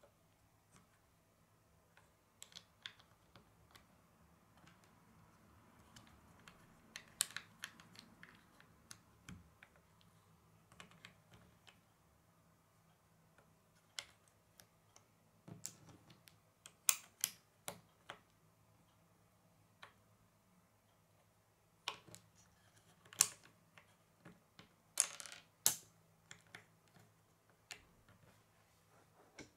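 Small plastic LEGO bricks being handled and pressed together on a wooden tabletop: irregular sharp clicks and taps, coming in small clusters with pauses between.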